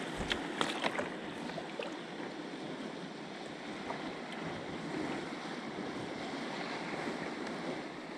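Gentle water lapping against a kayak's hull on calm sea, with light wind on the microphone. A few small clicks and knocks come within the first second.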